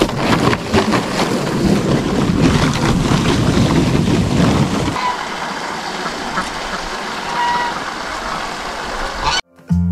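Water from a garden hose splashing into a plastic kiddie pool, heavier over the first five seconds, then a steadier pour into the filling pool. It cuts off suddenly near the end.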